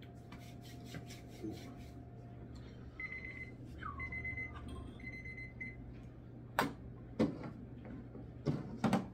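Digital countdown timer beeping, three steady high beeps about a second apart and a short fourth, as the 30-second wait between spoonfuls runs out. A few sharp clicks and knocks follow as the timer is pressed and handled on the table.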